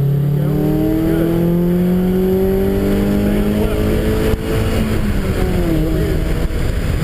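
Car engine pulling hard under acceleration, its pitch climbing steadily for about four seconds. It then breaks briefly and drops to a lower, steadier pitch, as at an upshift.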